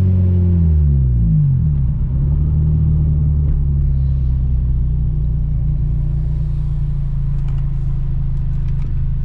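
Honda Civic engine through an Invidia exhaust: the revs fall back over the first two seconds, then it idles steadily.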